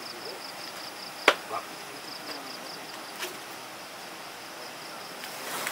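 Insects trilling steadily in rapid, even pulses, with faint voices in the background. A single sharp knock sounds a little over a second in, followed by a softer one, and a lighter tap about three seconds in.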